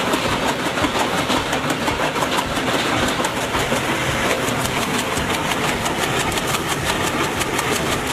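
Wood chipper running and chipping wood: a steady engine noise under a rapid, uneven clatter of pieces being cut and thrown.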